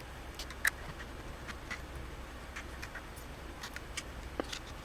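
Scattered light metallic clicks and ticks of snap-ring pliers and a retaining clip being worked onto a power steering shaft, the clip not yet seating.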